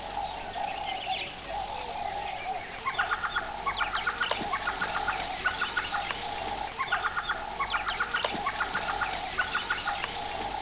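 A bird calling in short runs of rapid repeated notes, about two runs a second, starting about three seconds in, over a steady background hum.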